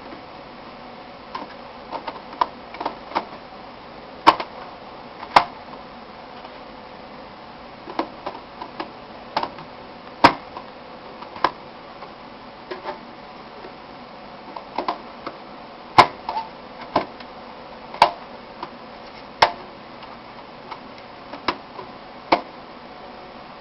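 Irregular sharp clicks and knocks of computer hardware being handled during a RAM install, some in quick clusters, over a faint steady hum.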